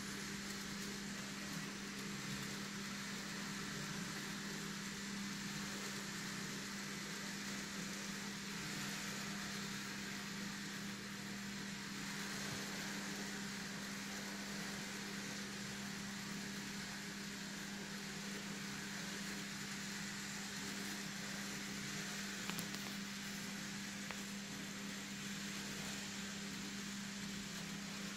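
N gauge model train running steadily round a track helix: a constant low electric-motor hum over an even hiss.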